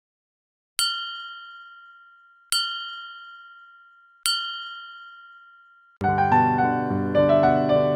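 A chime struck three times, about 1.7 seconds apart, each ding ringing out and fading: the alert that the sprint timer has run out. About six seconds in, piano music starts.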